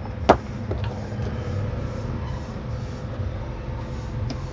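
Cables and plugs being handled on a TV-repair bench: one sharp click about a third of a second in and a couple of fainter clicks later, over a steady low rumble of background noise.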